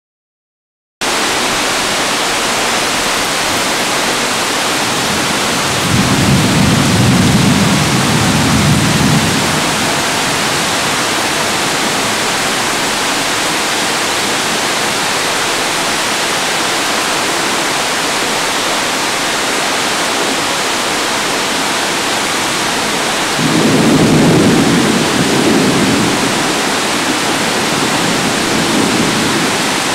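Heavy tropical downpour hissing steadily, starting about a second in. Thunder rumbles twice under the rain, once a few seconds in and again later, each for about three seconds, half drowned by the rain.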